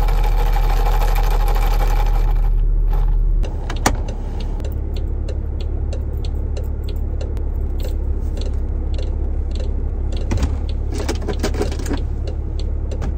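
Inside a car cabin: the steady low rumble of the running car, louder for the first three seconds or so, then dropping suddenly to a quieter rumble. The quieter part has scattered light clicks and small knocks.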